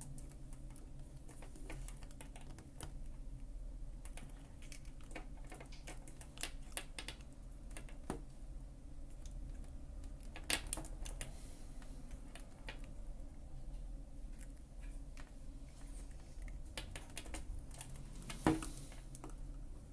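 Faint, irregular small clicks and ticks of two pairs of steel pliers gripping and bending a stiff metal link on a beaded necklace, with the beads and chain clinking now and then. Sharper clicks come about ten seconds in and near the end.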